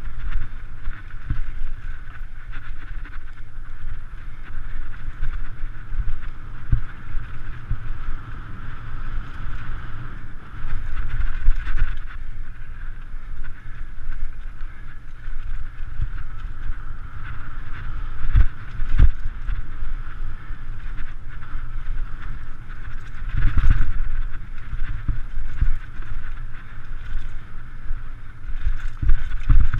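Mountain bike riding fast down a dirt trail: wind buffets the action camera's microphone over a constant rumble of tyres on dirt. A few sharp knocks and rattles come from the bike over bumps.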